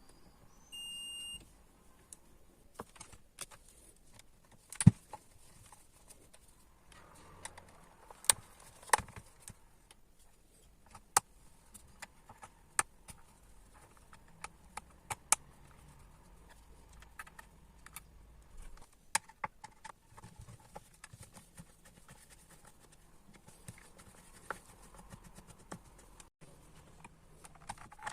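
A multimeter's beep: one short steady tone about a second in. It is followed by scattered sharp clicks and taps as the clothes iron and tools are handled.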